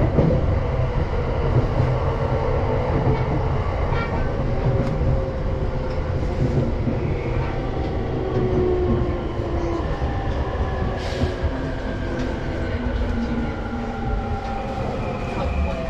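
Ride inside a JR East Tokaido Line electric commuter train: a steady rumble of wheels on the rails, with an electric motor whine falling slowly in pitch as the train brakes into a station.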